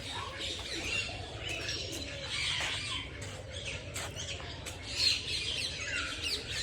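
A crowd of caged birds chirping and squawking all at once, a dense overlapping chatter of many small high calls with a few lower ones beneath.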